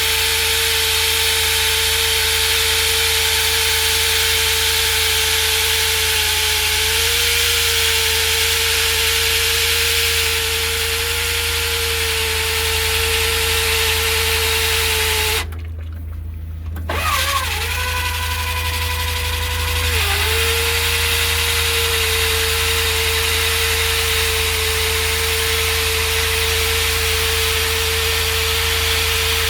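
Core drill boring through concrete, its motor running steadily under load with a constant hum over the grinding noise. About halfway through the grinding noise cuts out for a second or so, and the motor's pitch dips briefly twice as the load changes.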